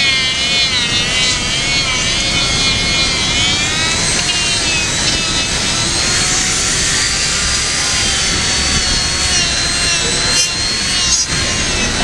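Handheld electric die grinder with a small buffing wheel running against rubber conveyor belt, roughening the splice steps for bonding. Its high whine wavers up and down in pitch as the wheel is pressed into the rubber and eased off.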